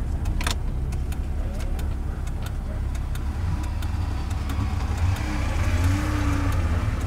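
Low, steady engine rumble heard inside the cabin of a Wartburg 353 fitted with a longitudinally mounted 1.3 engine, idling. A passing car swells up around five to six seconds in. There are a few light clicks, the clearest about half a second in.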